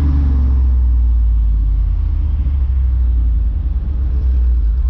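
Steady low engine and road rumble of a moving vehicle, heard from inside the cabin.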